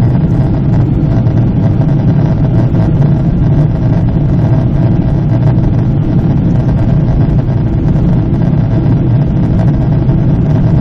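Steady in-flight cabin noise of a Boeing 777 at cruise, heard by a window over the wing: a constant deep drone of engines and rushing airflow with no change.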